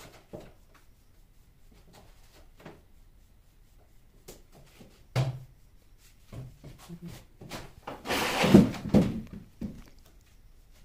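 Handling noise from brush painting on a gypsum-board frame: scattered light taps, a thunk about five seconds in, and a louder rubbing, scrubbing burst about eight to nine seconds in.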